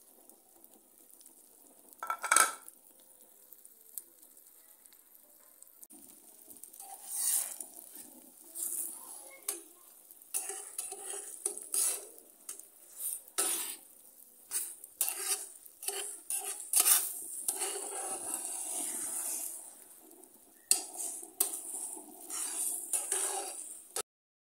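A metal fork scraping and clinking against a metal frying pan as scrambled egg and tomato is stirred, over the steady sizzle of the egg frying. One sharp clink comes about two seconds in; from about six seconds the scraping strokes come thick and irregular.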